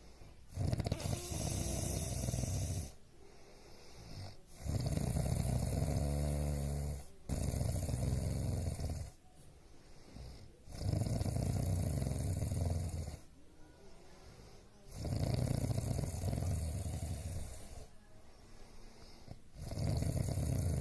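A sleeping person snoring heavily. Six loud snores come in a steady rhythm, roughly every three to four seconds, each about two seconds long, with quieter breaths between them.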